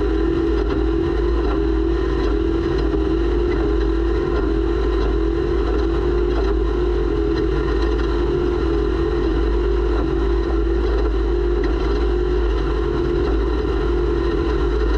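Race snowmobile engine running under steady throttle at a nearly constant pitch that wavers slightly, over a constant deep rumble.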